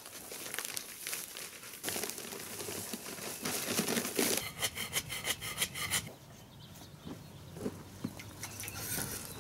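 Paper bag of Sakrete dry concrete mix rustling as it is handled and tipped, with the dry mix pouring out onto the soil in a fast, even rattle for about a second and a half midway. It goes quieter after that, with a few soft knocks.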